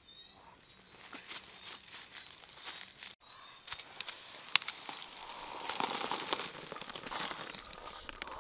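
Quail eggs poured from a bowl into a woven bamboo basket, a dense run of light clicks and rattles building from about four seconds in, with one sharp click among them. Before that, sparser crackles and clicks.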